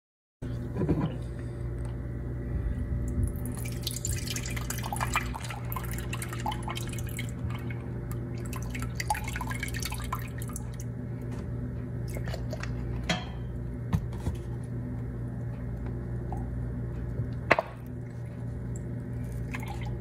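Chicken stock pouring from a carton into a glass measuring cup, with splashing and dripping over a steady low hum. A few sharp knocks come in the second half, the loudest about three-quarters of the way through.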